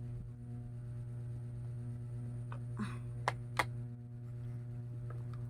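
A steady low background hum with two sharp clicks about a third of a second apart just past the middle, from handling the new blender-grinder and its parts during unboxing.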